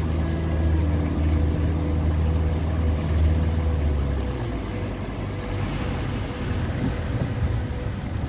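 Outboard-powered boat under way, heard from aboard: a steady low motor rumble under wind and water noise. The rumble drops away about four seconds in, leaving mostly water and wind noise.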